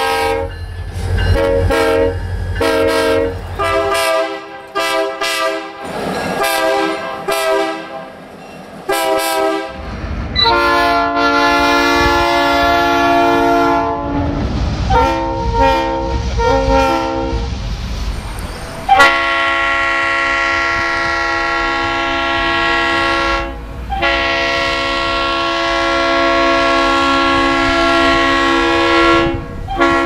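Diesel freight locomotive multi-chime air horns, several in turn: a run of short blasts with a long one between them, then, after a sudden change about two-thirds through, long held chords broken only briefly, with a low rumble of the passing train under some of them.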